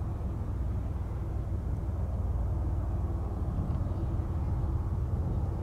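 Steady low rumble of distant jet aircraft engine noise, strongest in the bass and unchanging.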